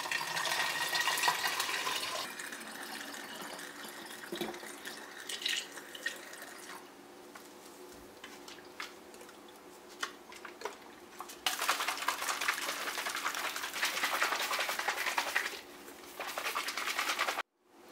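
Water poured into a plastic bottle of nickel sulfate crystals, then the bottle handled with small knocks and shaken so the liquid sloshes, dissolving the salt into a nickel plating solution. There is an even rush of liquid at the start and a louder stretch of sloshing in the second half, and the sound cuts off abruptly just before the end.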